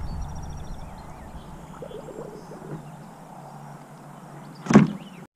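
Steady low wind rumble on the microphone, then one sharp knock on the plastic kayak's hull or fittings about three-quarters of a second before the end.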